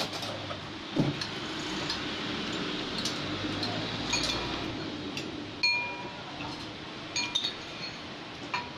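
Metal spoon clinking against a glass jar, a few sharp clinks with short ringing tones in the second half. A dull knock about a second in.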